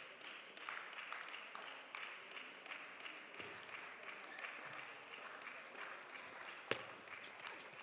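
A table tennis ball struck with one sharp click about three-quarters of the way through, the loudest sound, over a steady hall din with faint scattered taps.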